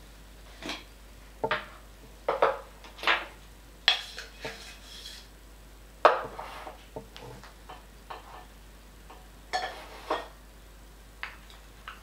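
Metal espresso tools (portafilter, filter basket and coffee scoop) being handled and set down on a countertop: about a dozen irregular clinks and knocks, the loudest about halfway through.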